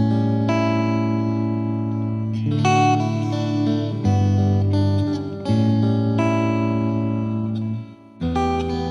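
Background music led by guitar, with sustained chords changing every second or so and a short break near the end.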